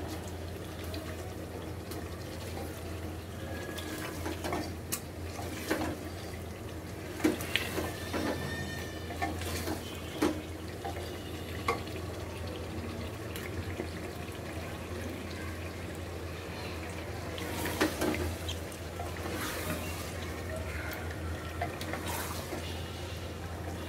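Raw chicken pieces dropped one at a time into wet spiced masala in an aluminium pot, the masala sizzling, with scattered knocks and scrapes of a wooden spatula against the pot.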